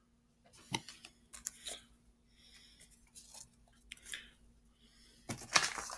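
Handling noises: scattered soft clicks and short rustles as trading cards are handled and set down, with a louder rustle near the end.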